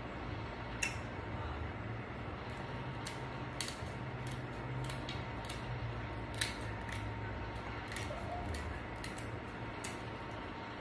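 Scattered sharp clicks and cracks of seafood-boil shells, such as crab legs, being broken open by hand while eating, over a steady low hum.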